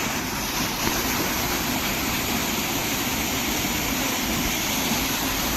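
Waterfall: water rushing in a steady, dense, even noise.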